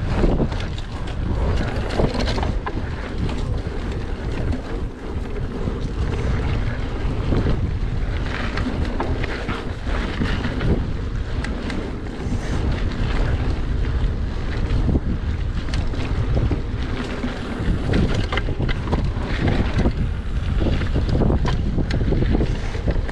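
Wind buffeting a GoPro Hero 8 Black's microphone as a mountain bike rolls along a dry dirt trail covered in leaves, with tyre noise and frequent knocks and rattles from bumps in the trail.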